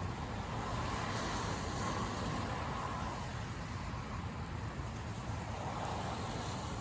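Steady rumble and hiss of a car being driven in the rain: road and tyre noise with the wet hiss of the rain.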